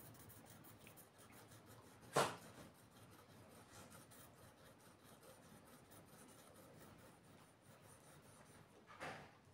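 Faint rubbing of a small Japanese natural finger stone pushed by a fingertip along a knife blade, with water and sharpening swarf, to raise a hazy kasumi finish on the steel. One sharp, louder scrape about two seconds in, and a shorter one near the end.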